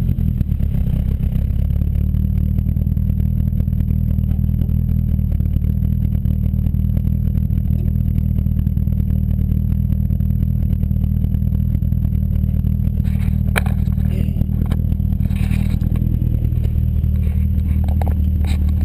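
Toyota 4A-GE four-cylinder engine in a Triumph Spitfire, heard close at the exhaust tip, idling with a steady, unchanging note. A few light clicks and knocks come in over the last few seconds.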